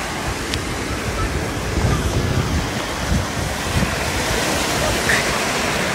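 Sea waves washing onto the shore, with wind rumbling on the microphone.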